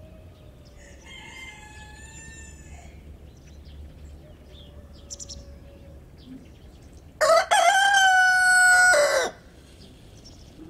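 Rooster crowing once, loud, about seven seconds in, the crow lasting about two seconds. A much fainter call sounds earlier, between about one and three seconds in.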